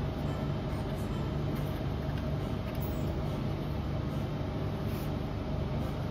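A steady low machine hum with a faint constant tone above it, unchanging throughout.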